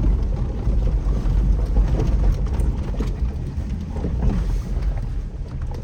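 Steady low rumble of a 2007 Jeep Wrangler JK driving, heard from inside the cabin: engine and tyre noise with a faint hiss above it.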